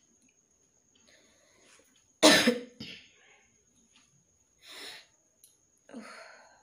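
A woman coughing from a tickle in her throat: one loud cough about two seconds in with a smaller one right after, a breathy rasp a couple of seconds later, and a shorter, throatier cough near the end.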